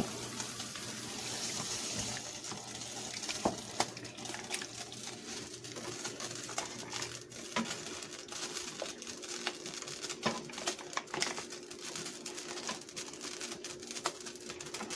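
A spoon stirring flour gravy in a pan, giving scattered light clicks and scrapes against the pan, after a steady hiss in the first two seconds, with a faint steady hum underneath.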